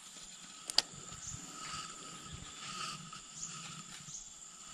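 Steady high-pitched insect chirring, with one sharp click about three-quarters of a second in.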